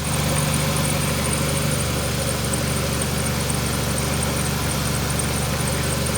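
Jeep Liberty's 3.7-litre V6 idling steadily, running on a jumper wire that bypasses the broken computer feed wire.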